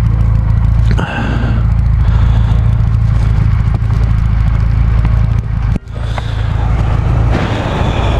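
Motorcycle engine running steadily at an even pitch with no revving, with a hiss of wind and road noise over it. The sound drops out suddenly for a moment a little before six seconds in.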